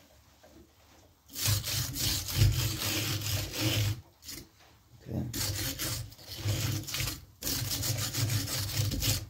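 Saw chain being pulled by hand around a dry, dirty chainsaw bar, scraping and rasping in three long drags with short pauses between them; the bar has no oil on it, so the chain drags.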